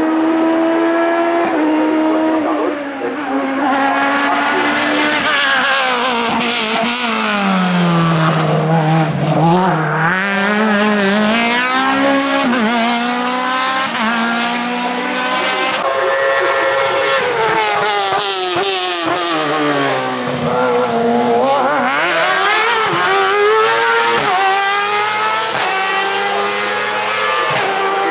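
Sports-prototype race car engine driven hard up a hill climb, its high-revving note climbing in pitch under acceleration and dropping as the car slows for the bends, several times over.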